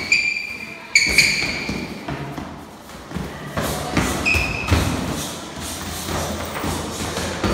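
Padded boxing gloves landing punches with dull thuds, a quick run of them about halfway through, with two sharp, high-pitched squeaks near the start.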